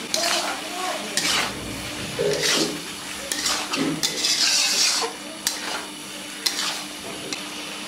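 A spatula stirring and scraping vegetables in a pan over the fire, just after eggplant pieces have been added. The strokes come irregularly, about one a second, with a hissing sizzle of frying that swells about halfway through.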